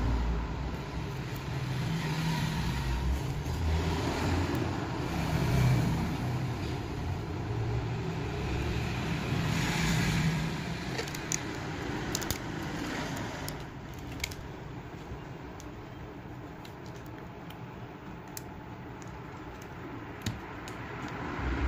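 Low background rumble that rises and falls, easing after about twelve seconds, with light clicks and taps of small metal parts being handled on a workbench.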